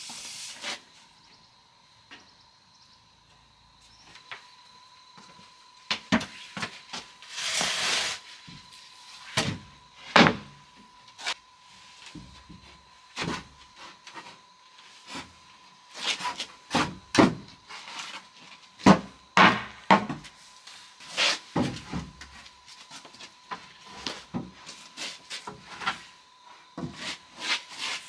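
Irregular sharp knocks and dull thuds of wood being handled and struck, coming in clusters and growing busier in the second half, with a brief scraping noise about eight seconds in.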